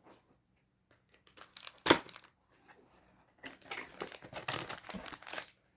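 Plastic packaging being handled and crinkled during a toy unboxing: a sharp crackle about two seconds in, then irregular crinkling and rustling near the end.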